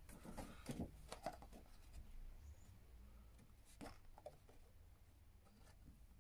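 Faint rustles and soft taps of a printed card art print being handled and turned over, in near silence.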